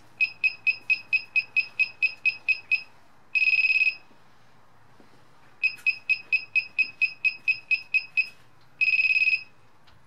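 Built-in buzzer of a joystick control box for an Alexmos SimpleBGC gimbal controller beeping: a quick run of about a dozen short high beeps, about four a second, then one longer beep, and the same pattern again about halfway through.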